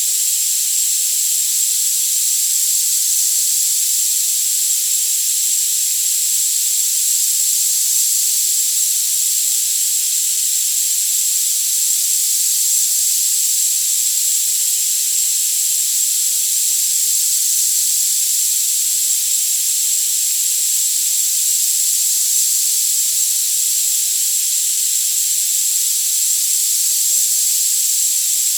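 Tinnitus therapy sound: a steady high-pitched hiss with a thin, unwavering whistle on top and no low sound at all.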